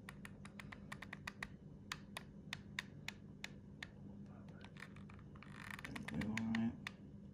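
Hot glue gun clicking in quick, irregular taps as its trigger is worked to feed glue. A short hum of a voice about six seconds in.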